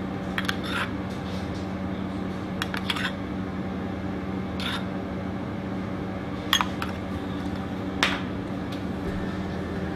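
A metal spoon clinks lightly against a small steel pot and a ceramic plate as oil is spooned over a dish. There are several short clinks, the loudest two around six and a half and eight seconds in, over a steady background hum.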